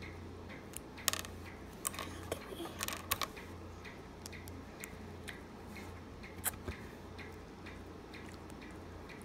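LEGO plastic pieces clicking and knocking as they are handled and pressed onto a LEGO axle. There is a burst of sharp clicks between about one and three seconds in and one more knock about six and a half seconds in, over a faint regular ticking about twice a second and a low hum.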